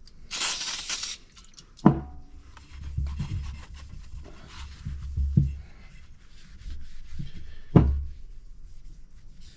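A short hiss of aerosol brake cleaner sprayed onto a shop towel, then the towel rubbing and wiping over the metal primary clutch sheave. Two sharp knocks stand out, about two seconds in and near the end.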